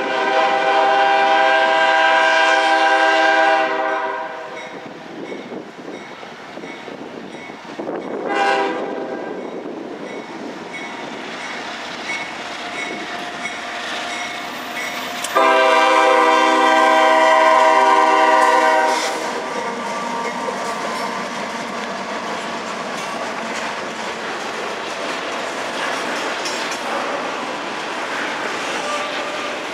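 A freight locomotive's horn sounds a long blast, a brief toot, then a second long blast. A double-stack container freight train then rolls across the level crossing, its wheels clattering. The crossing's electronic bell rings steadily throughout.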